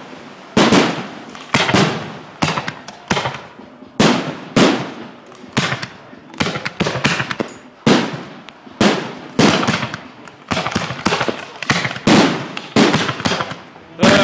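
Fireworks display: an irregular barrage of shell bursts, more than one bang a second, each bang trailing off in an echoing rumble.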